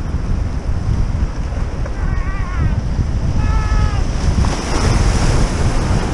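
Wind buffeting the microphone over surf washing among the shore rocks, with a wave surging in about halfway through. Two short high calls sound a second or so apart.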